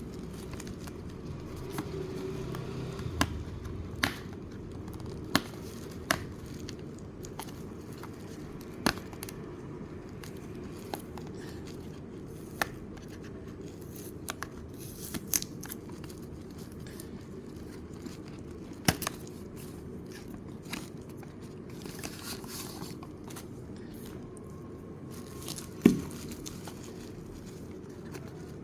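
Packaging being handled and opened by hand: scattered clicks and taps, with stretches of crinkling and tearing of wrapping, over a steady low hum. The sharpest click comes near the end.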